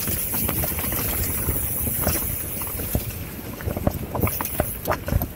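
Mountain bike descending a dirt singletrack: knobby tyres rumbling over the ground with wind rushing on the microphone, and frequent short knocks and rattles as the bike hits bumps.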